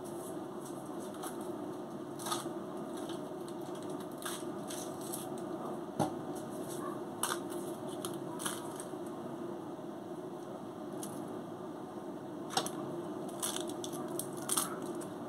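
Scattered light clicks, knocks and rustles of food being handled during burger assembly, the sharpest knock about six seconds in, over a steady background hum.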